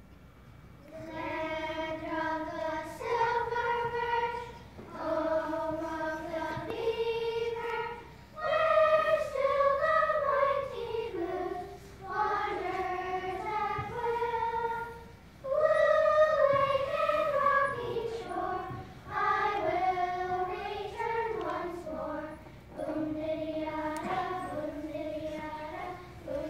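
A group of children singing a melody together in phrases of two to three seconds, with short breaks between phrases.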